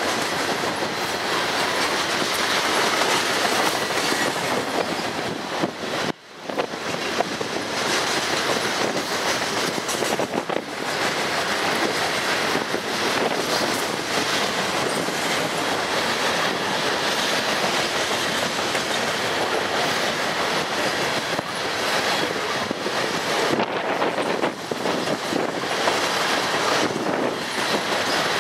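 Freight train's covered grain hopper cars rolling past at close range in a steady, continuous rumble of wheels on rail, with a brief drop-out about six seconds in.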